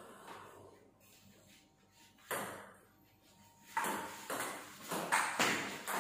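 Table tennis ball knocking off bat and table: one sharp hit a little over two seconds in, then five quick hits in the last two and a half seconds, each with a short ring.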